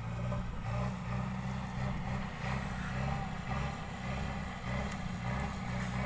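JCB 3DX backhoe loader's diesel engine running steadily under load as its front loader bucket pushes and levels soil.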